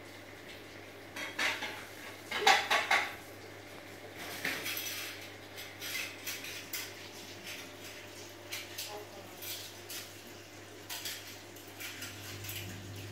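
Irregular clinks and clatter of hard objects, with a louder cluster about two and a half seconds in, over a steady low hum.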